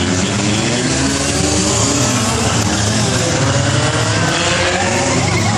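Several figure-8 race cars running around the track at once, their overlapping engine notes rising and falling as they accelerate and lift off.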